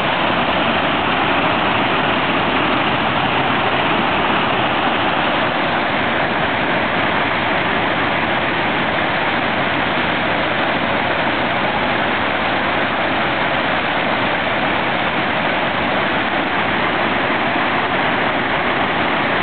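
Monsoon floodwater rushing through a normally dry desert creek bed and churning over a concrete path crossing: a steady, unbroken rush of water.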